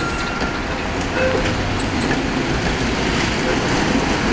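Tatra T3 tram passing close over curved track and points: a steady noise of steel wheels on rails and running gear.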